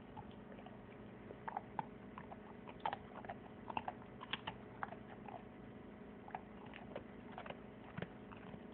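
A pet playing with and gnawing at a treat: irregular sharp clicks and taps, busiest in the first half and sparser later, over a faint steady hum.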